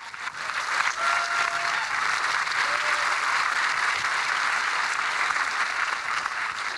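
Audience applauding, swelling in during the first second, holding steady, then dying away near the end.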